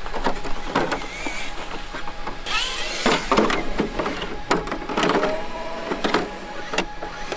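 Hard plastic RC truck body shell being fitted onto the chassis of a Traxxas X-Maxx: a scattered series of clicks and knocks as it is handled and pressed into place. A brief rushing noise comes about two and a half seconds in.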